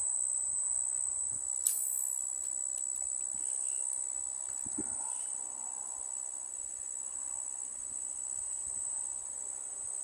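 Steady high-pitched chirring of insects, with one sharp click a little under two seconds in.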